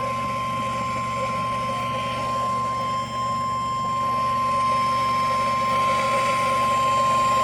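NOAA Weather Radio 1050 Hz warning alarm tone: one steady, unwavering pitch over receiver hiss and a low hum. It is the alert signal that a warning broadcast is about to follow.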